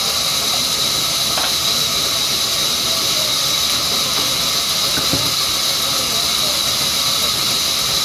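Large vertical band saw cutting a mango wood plank: a steady, loud high-pitched whine over the hiss of the blade through the wood.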